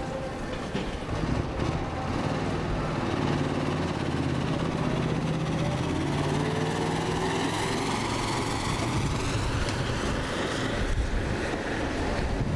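Eight-wheeled armoured personnel carrier's engine running as it drives along the street, the engine note rising and falling about midway through.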